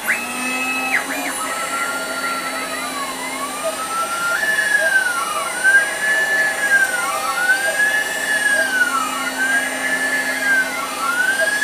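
6040 CNC router cutting a circular profile through ABS plastic with a single-flute end mill: the spindle runs steadily while the stepper-motor whine rises and falls in pitch about every two seconds as the head traces the circle.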